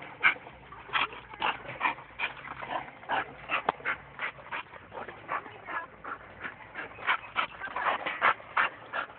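Pit bull dog making short, repeated sounds, about two or three a second, while going at a swing.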